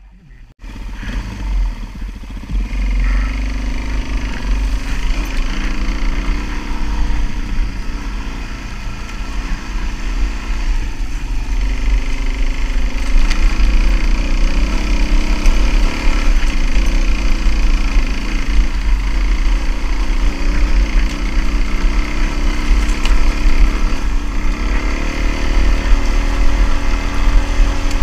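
Suzuki DR-Z400S's single-cylinder four-stroke engine pulling the dirt bike up a steep, rocky hill trail under load, getting louder over the first dozen seconds, with a heavy low rumble throughout.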